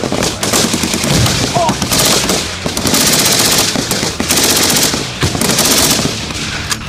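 Rapid automatic gunfire in dense overlapping bursts from a belt-fed machine gun and soldiers' rifles firing together, loudest in several bursts through the middle.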